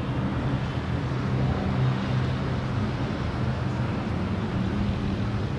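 Steady low hum and rumble of background traffic noise, with no distinct events.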